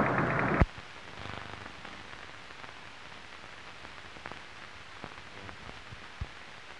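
Steady surface hiss with scattered faint crackles and ticks from an old newsreel's optical film soundtrack. The loud preceding sound cuts off at a sharp click less than a second in.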